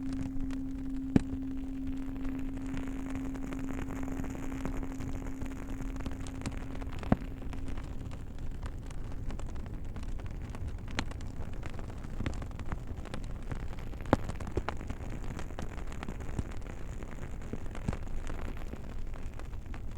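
Campfire crackling with many small snaps and a few louder pops, about 1, 7 and 14 seconds in. A low singing bowl's steady hum fades away over the first half.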